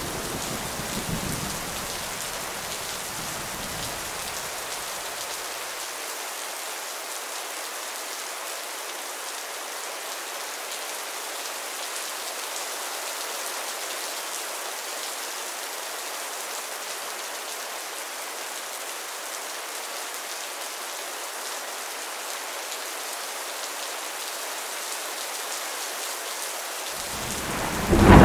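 Steady rain falling, an even hiss. A thunder rumble dies away over the first few seconds, and another thunderclap starts to build right at the end.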